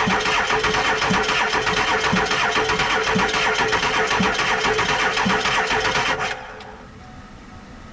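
Starter motor cranking the Ford F-350's diesel engine over without it firing, while the high-pressure oil system primes. It cranks steadily, then cuts off abruptly about six seconds in.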